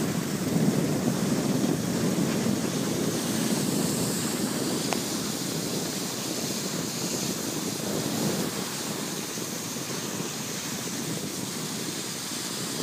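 Steady rushing wind noise on the microphone mixed with the hiss of skis sliding over snow, easing off a little toward the end.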